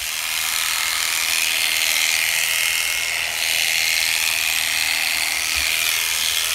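Electric shearing handpiece running with a steady high whine as its comb and cutter clip through long fleece.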